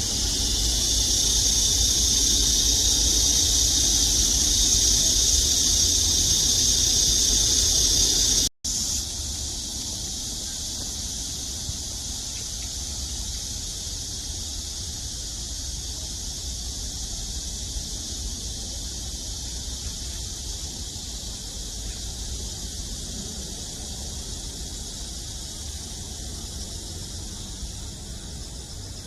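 Steady outdoor ambience: a high hiss over a low rumble. It breaks off at a cut about eight seconds in and carries on softer.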